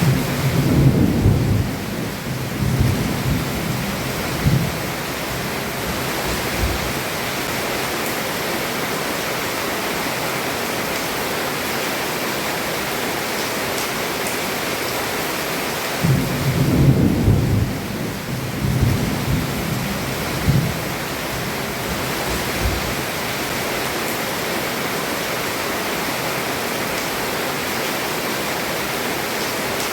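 Heavy rain falling steadily on a roof, with two rolls of thunder: one rumbling over the first few seconds and another about halfway through.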